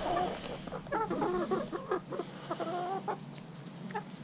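Chickens clucking in a run of short, repeated calls while they crowd around and peck raisins from a hand.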